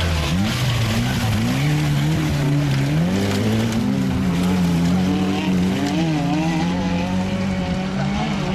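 Mitsubishi rally car's engine revving hard as it drives away on a muddy gravel stage. Its pitch climbs and drops several times in the first few seconds, then holds a steadier, wavering note.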